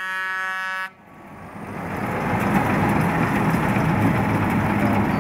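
A horn sounds with a buzzy, many-toned note for about a second and cuts off suddenly. Then the 1934 AEC heavy truck is heard driving past, its engine and tyres growing louder and holding steady.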